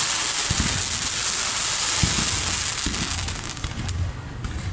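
Aerial fireworks bursting into crackling gold stars: a dense, continuous crackle of many tiny pops, with a few dull low booms underneath.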